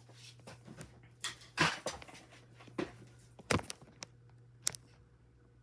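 1994 Tatung-made Hampton Bay Southwind ceiling fan running on low speed, its motor giving a steady low hum. Several sharp clicks or knocks sound over the hum, the loudest about a second and a half in and again about three and a half seconds in.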